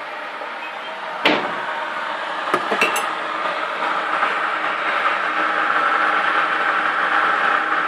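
A glass bowl set down with a sharp clunk on a stainless steel sink drainer about a second in, followed by a few lighter clinks. After that a steady hiss builds slowly in level.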